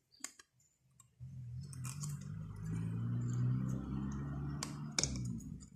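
Light clicks of a piston ring being pressed into its groove on a VW Golf Mk1 1.8 piston by hand, a couple near the start and two near the end. Between them a steady low hum of unclear source runs for about four seconds and is the loudest sound.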